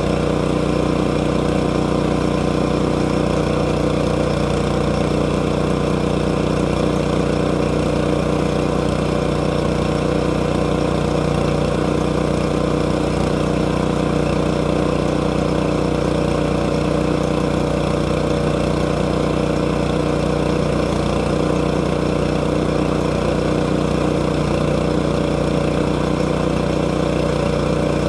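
Sawmill engine running steadily at a constant speed, with no change in pitch.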